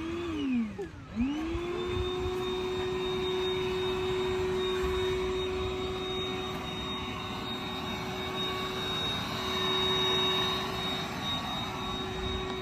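A motor revs up and falls back within about the first second, then revs up again and holds a steady high-pitched whine to the end.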